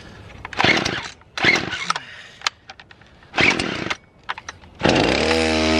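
Husqvarna two-stroke gas chainsaw being pull-started: three short rips of the recoil starter, then the engine catches about five seconds in and runs with a rising note. The saw is hard to start even though it is still warm.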